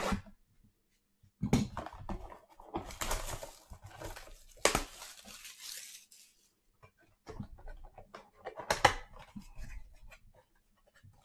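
Plastic wrapping and cardboard packaging being torn and crinkled as a box of trading cards is opened: several irregular rips, the longest and loudest about halfway through.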